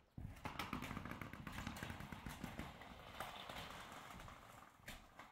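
Footsteps across corrugated metal roofing sheets, a run of quick knocks and rattles underfoot.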